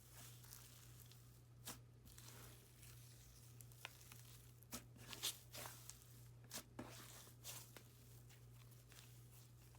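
Faint, sparse crackles and small pops from an icy slime being stretched and pressed, the sizzly sound of icy slime, over a faint steady hum.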